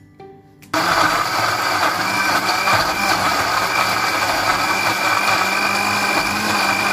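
Electric countertop blender switching on just under a second in, then running steadily as it grinds red chilies, shallots, garlic and spices into a wet paste.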